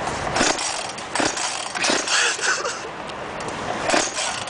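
A chainsaw being pull-started: a few short rasping pulls on the starter cord, the engine not yet running steadily.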